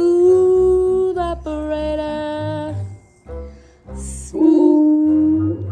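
Pit bull-type dog howling in three long, steady notes, each held for about a second, over music with a low bass line.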